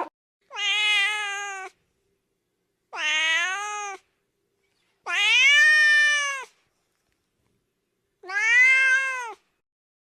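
A cat meowing four times, each meow about a second long and rising then falling in pitch, with silence between the calls.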